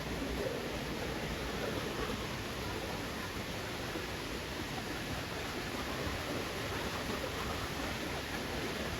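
Waterfall rushing steadily into its pool, an even hiss of falling water.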